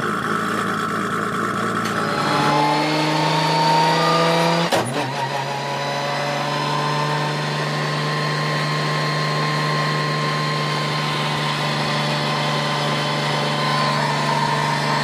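Car engine running steadily, then revving up with a rising pitch for about two seconds. After a sudden break near five seconds, a steady engine note holds, rising slightly, as from a car under way.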